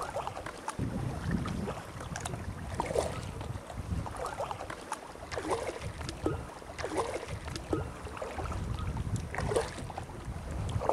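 Sea kayak paddle blades dipping and splashing in the water about once a second, with wind rumbling on the microphone.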